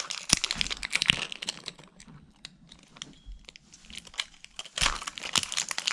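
Wrapper being peeled and torn off a Mini Brands capsule ball, crinkling in spells of quick crackles, with a quieter lull in the middle.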